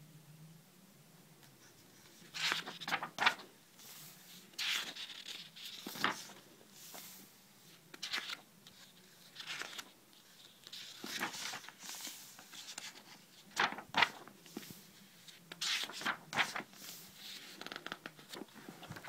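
Paper sketchbook pages being turned and handled by hand: irregular rustles and swishes of paper, several sharper ones a second or two apart.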